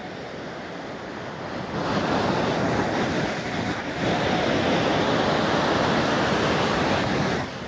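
Wind blowing on the microphone over surf, a steady rushing noise that grows louder about two seconds in and drops back suddenly near the end.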